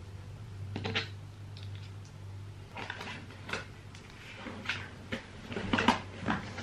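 Makeup palettes and cases being handled and set down on a table: a string of small clicks, taps and knocks, closer together in the second half, over a steady low hum.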